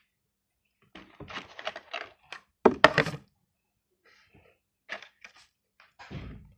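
A run of knocks and clatters of hard objects being handled, with the loudest sharp knocks about three seconds in, a few light clicks later, and a duller thud near the end.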